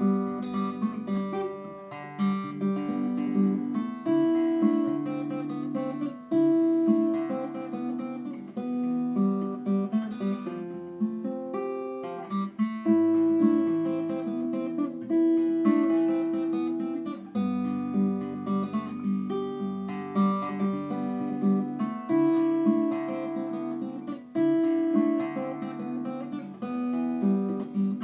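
Acoustic guitar playing a chord progression, with chords changing about every two seconds, mixing strummed chords and picked notes.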